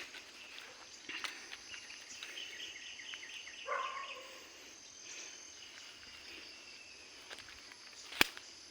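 Farm ambience: a steady high insect drone, a run of short chirps about two to three and a half seconds in, ending in a brief animal call, and a single sharp click near the end.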